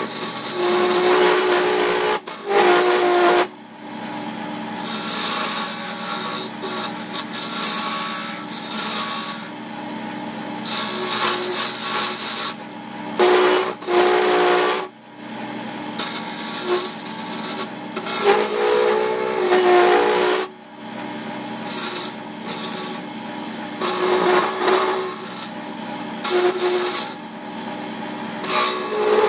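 Electric wood lathe running, with a hand-held turning tool cutting a spinning cherry-wood handle blank. The cutting comes in bursts of a few seconds as the tool is pressed in and eased off, over the lathe motor's steady hum.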